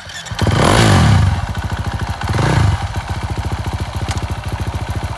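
A 350 cc four-stroke motocross bike's engine starts about half a second in, revs up, settles to a fast, even idle, is blipped once more around two and a half seconds, and idles again.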